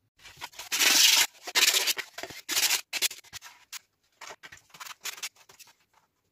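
Hand rubbing and scraping over thin plywood during clean-up of the scroll-sawn pieces: a run of short, dry strokes, the loudest about a second in, then lighter, sparser scrapes.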